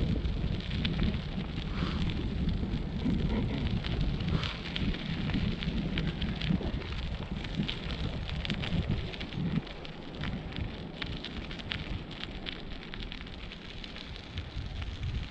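Wind rumbling on a small camera's microphone, with many small crackles and ticks throughout; the rumble eases about two-thirds of the way through.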